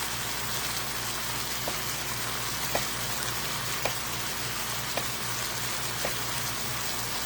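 Food sizzling in a hot pan on the stove, a steady hiss, with a short faint tick about once a second.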